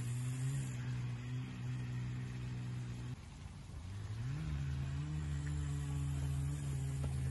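A steady, low engine-like hum. It drops away about three seconds in, then rises back to a higher steady pitch, as if revved.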